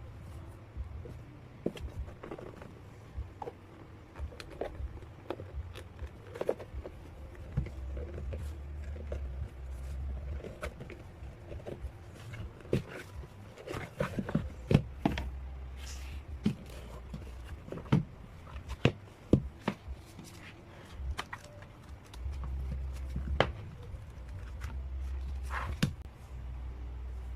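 Handling noises of music albums and their packaging being opened and handled: scattered clicks, taps and knocks at irregular intervals, with patches of low rumble from handling.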